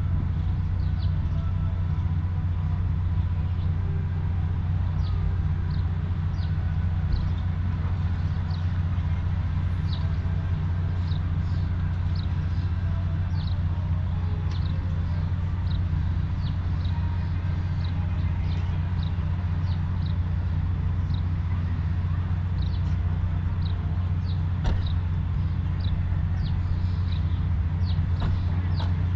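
A steady low mechanical hum, like an idling engine or generator, runs throughout. Frequent short, high chirps, like small birds, sound above it.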